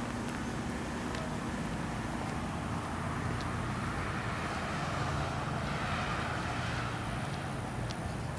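Road traffic noise with a steady hum, and a vehicle passing by that swells and fades over a few seconds about halfway through.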